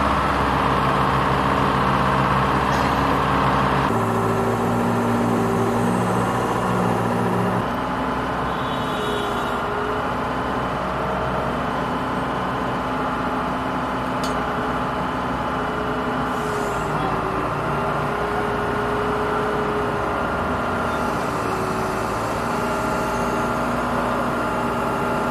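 Truck-mounted crane's engine running steadily as it hoists a load on its hook. The engine note shifts about four seconds in and again a few seconds later.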